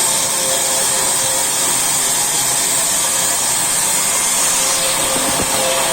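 Sawmill saw machinery running steadily: an even, continuous machine noise with a strong high hiss and a constant hum beneath it.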